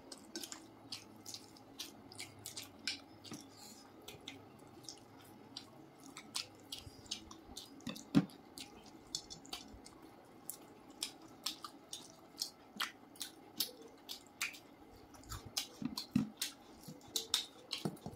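Eating by hand: fingers squishing rice and curry on plates, with chewing and lip smacks making a run of short wet clicks. One louder knock about eight seconds in.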